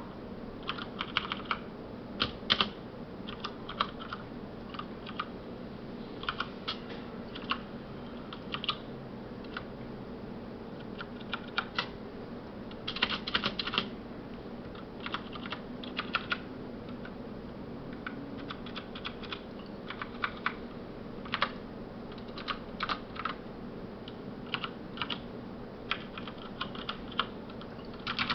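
Typing on a Noppoo Choc Mini mechanical keyboard with Cherry MX Brown (tactile, non-clicky) switches: irregular runs of key clacks broken by short pauses.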